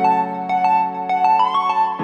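Background music: a keyboard melody of quick, evenly spaced notes over held chords.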